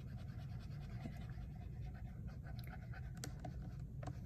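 Felt-tip marker rubbing back and forth on paper as an area is coloured in, over a steady low hum, with a few faint ticks in the second half.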